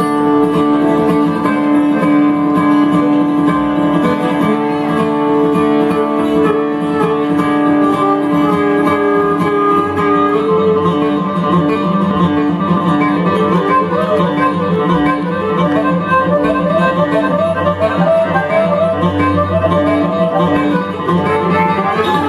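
Bluegrass string band playing an instrumental passage, with acoustic guitar and other plucked strings. Long held notes give way about halfway through to fast picked runs, with a low bass line joining later.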